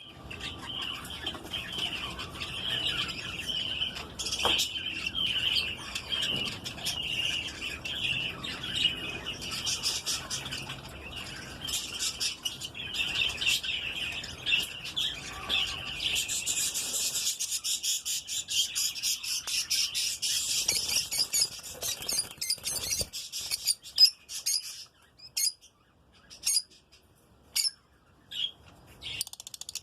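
Lutino lovebird chicks chirping in a dense, continuous chatter, which higher, sharper calls take over about halfway through. Near the end it breaks up into separate short chirps.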